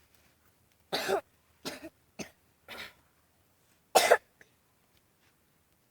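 A person coughing five times in short separate bursts, the last cough, about four seconds in, the loudest.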